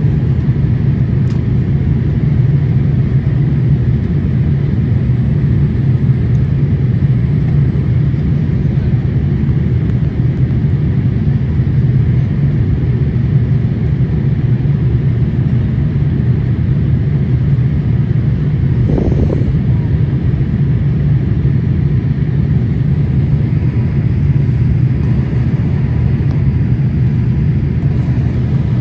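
Steady low rumble of engine and airflow noise inside the cabin of an Air India Boeing 787 airliner in flight.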